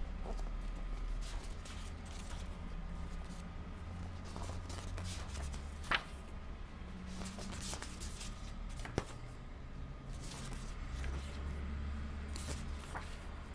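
Pages of a thick paperback book being turned by hand: paper rustling and sliding, with a sharp page snap about six seconds in and another about nine seconds in, over a low steady hum.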